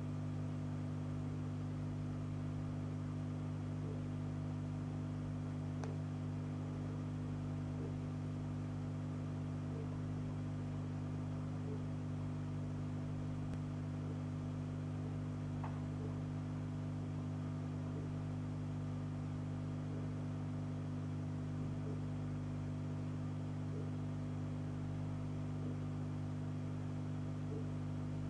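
Steady low electrical hum under a constant hiss, with faint soft ticks about every two seconds.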